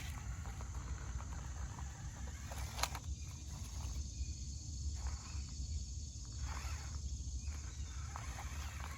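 Faint outdoor background noise: a steady low rumble with a light hiss over it, and one sharp click about three seconds in.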